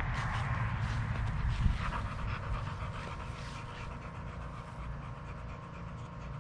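Alapaha Blueblood bulldog panting steadily, with a few brief rustles in the first two seconds.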